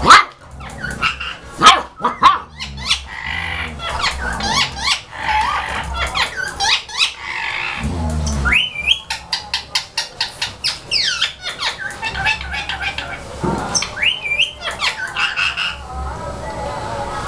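German Shepherd puppy and its mother dog play-fighting: repeated short, high-pitched yelps and whines that rise and fall in pitch, mixed with barks and sharp scuffling clicks.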